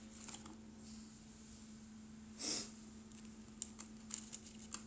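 A person's short, sharp nasal breath about halfway through, over a steady low hum. A few faint light clicks follow near the end.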